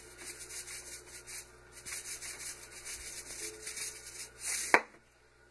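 Fine sea salt trickling from a canister's pour spout into a measuring spoon: a dry, grainy hiss in short uneven pulses. A single sharp click comes near the end.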